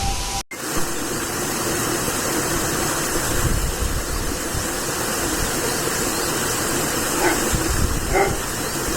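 Waterfall: a steady rush of falling water, starting after a brief dropout about half a second in.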